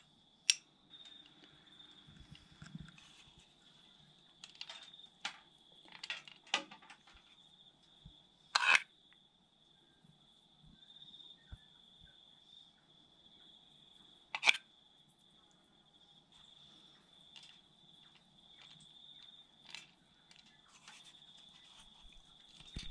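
Metal spoon clinking and scraping against a small ceramic bowl as sauce is spooned out, with a few sharp clinks standing out, twice louder than the rest. Under it runs a steady high-pitched insect trill.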